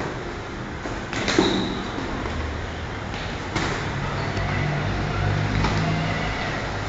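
Sharp thuds from two boxers sparring in gloves, three of them, the loudest about a second in, over a steady low hum.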